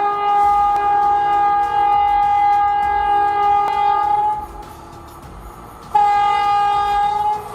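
Train horn sounding a long steady blast, then a second shorter blast about six seconds in, with quieter rumbling in the gap between.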